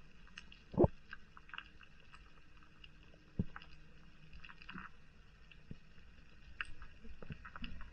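Underwater reef sound heard through a camera housing: a faint steady background scattered with small clicks and crackles, a dull thud about a second in and a lighter knock a little after three seconds.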